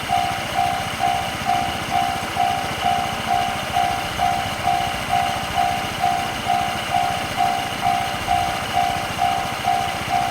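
Japanese level crossing's electronic warning bell ringing, one clear pitch struck a little over twice a second, each ding fading quickly before the next. It is the signal that the crossing is closing for an approaching train.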